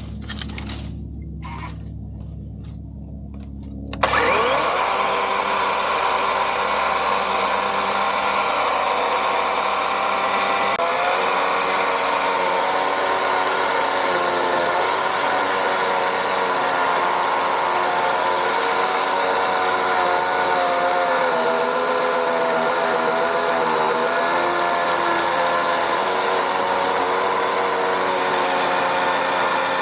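DeWalt DCCS620 20V battery chainsaw motor and chain starting suddenly about four seconds in and running with a steady high whine, its pitch dipping and wavering at times as it cuts. Before it starts there is a low rumble with a few clicks.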